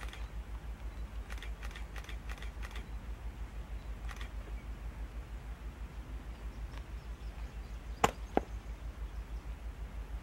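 Distant diesel locomotive at the head of an approaching coal train, heard as a low, evenly pulsing rumble. Faint scattered ticks sit over it, and two sharp clicks a fraction of a second apart, about eight seconds in, are the loudest sounds.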